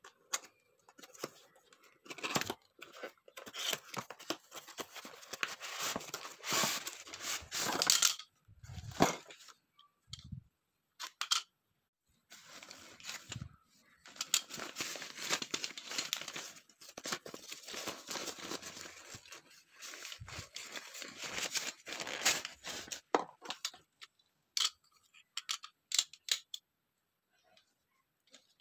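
Packaging of a boxed tripod being opened and handled: rustling and tearing in two long stretches, then a few sharp clicks near the end as the folded tripod's parts are handled.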